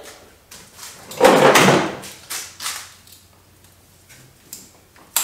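Nylon painter rope being pulled and handled: a loud scraping rustle about a second in, then shorter rustles and a sharp click near the end.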